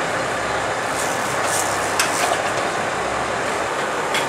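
Steady rush of wind and sea with the boat's engine running under it, with a few brief sharp ticks and splashes.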